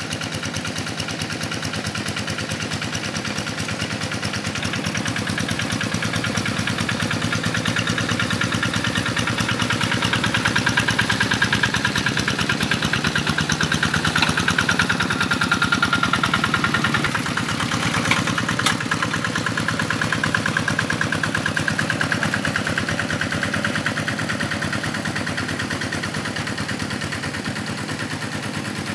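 Quick G1000 two-wheel hand tractor's diesel engine running steadily with a rapid chug while plowing a flooded rice paddy. It grows louder as the tractor passes close, drops off suddenly a little past halfway and carries on fainter, with one sharp click just after the drop.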